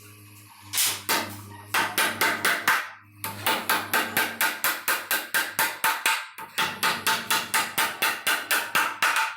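A hammer striking in a fast, even rhythm of about four blows a second, with a short pause about three seconds in.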